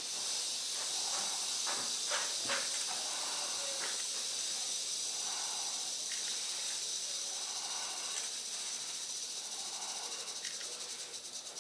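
A rattlesnake, held for venom extraction, rattling its tail in a continuous high buzz. Near the end the buzz slows into separate rapid pulses and begins to fade.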